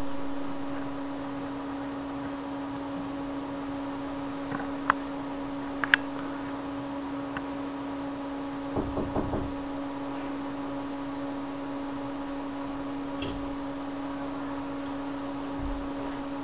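Steady low hum of a running desktop computer, with a few sharp knocks scattered through, two of them about a second apart and a cluster of duller thuds a little later.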